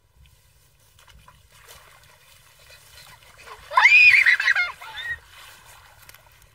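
A single high-pitched cry about four seconds in, about a second long, sweeping up in pitch and then falling with a wavering tail, over faint splashing in shallow muddy water.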